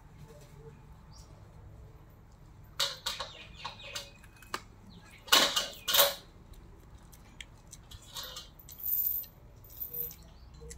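A dog chewing and crunching pieces of chicken, in short bursts: a cluster about three seconds in, the loudest crunches around five to six seconds, and a few softer ones near the end.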